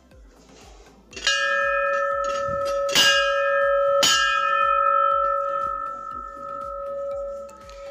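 Large hanging metal temple bell rung by hand, struck three times (about one, three and four seconds in), its ringing tone slowly fading after the last strike.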